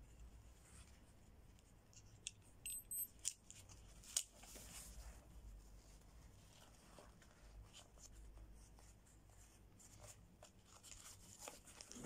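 Faint handling noise of a nylon tactical pouch: fabric rustling as its flap is closed over the front pocket, with a few sharp plastic clicks about two to four seconds in from the buckle being handled.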